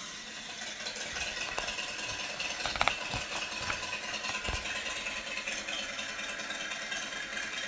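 Pages of a large glossy book being handled and turned by hand, with a quick cluster of sharp paper clicks about three seconds in, over a steady background noise.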